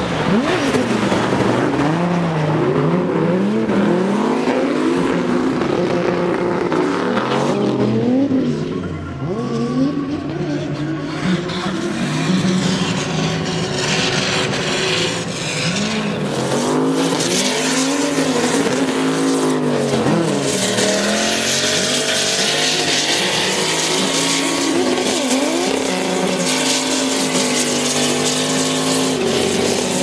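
Turbocharged LS V8 in a Nissan S13 drift car, revving up and down hard as it slides, with tyres squealing. Later the revs are held nearly steady as the rear tyres spin and smoke.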